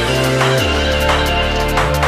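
Background music with deep sustained bass notes that change pitch about half a second in and again near the end, over regular percussion hits.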